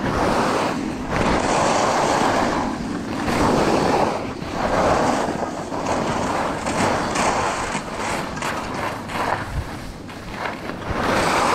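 Vintage Salomon skis scraping and hissing over groomed snow as the skier turns downhill, the noise swelling and fading every second or two with each turn, mixed with wind buffeting the camera microphone.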